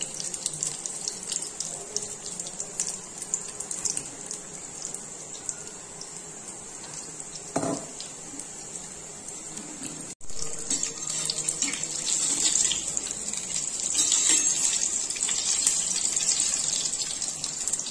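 Sponge gourd fritters in gram-flour batter deep-frying in hot oil: a steady sizzle with continual small crackles, freshly dropped into oil that is being kept hot. After a brief break about ten seconds in, the sizzle is louder.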